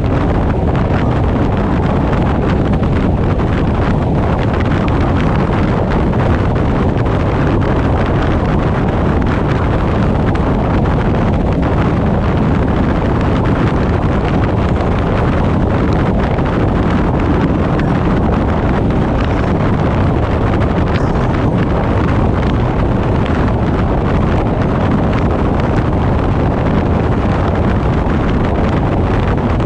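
Wind rushing over the microphone of a GoPro action camera mounted on the bonnet of a moving car, mixed with the car's road and tyre noise. A loud, steady rush with no clear engine note.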